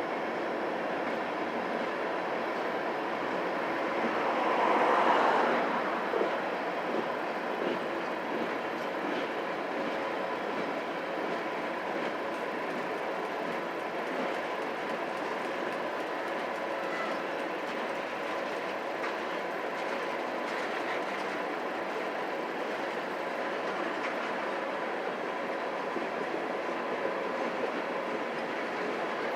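Train rolling along the rails, a steady rumble of wheels on track with a faint constant tone throughout and a brief swell in loudness about five seconds in.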